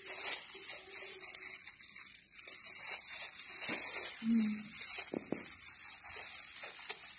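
Thin clear plastic disposable gloves rustling and crinkling as they are pulled on and worked over the hands, with a short hum from a voice about four seconds in.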